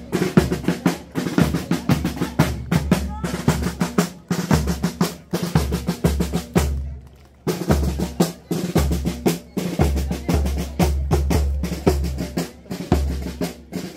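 Drum-heavy music: fast snare hits and rolls over a steady bass drum beat, with a brief break about seven seconds in.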